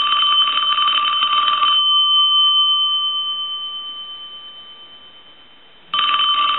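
Western Electric Princess telephone bell ringing on a low ring voltage, below a normal ring signal, as a check that it still rings. A burst of about two seconds of rapid strikes on the gong rings out and fades over about four seconds, and the next burst starts near the end.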